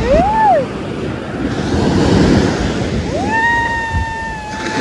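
Ocean surf washing in around the ankles, with wind buffeting the phone's microphone.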